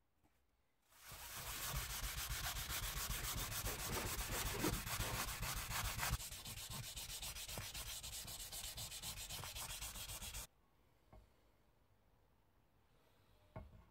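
A hand-held abrasive block rubbed quickly back and forth over a brass scale dial, a dense scratchy sanding sound of rapid strokes that starts about a second in and cuts off abruptly after about nine seconds.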